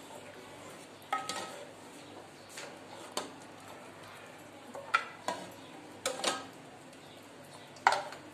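A ladle clinking and scraping against an aluminium cooking pot while trotters and gravy are scooped out: about eight separate sharp clinks, several ringing briefly, the loudest near the end.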